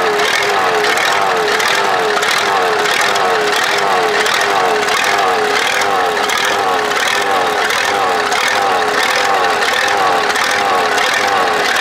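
Supercharged Cummins diesel tractor engine running, loud and steady, its pitch rising and falling in a regular wobble a little more than once a second.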